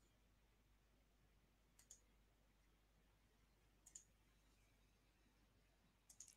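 Near silence with three faint clicks about two seconds apart, computer mouse clicks.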